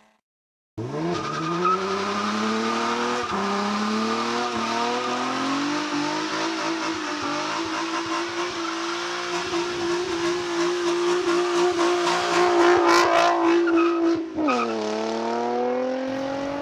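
A 2005 Infiniti G35 Rev-up's VQ35 V6 running through a Motordyne Shockwave exhaust with ART pipes. The engine revs up, holds a high, steady pitch, then drops suddenly near the end and climbs again.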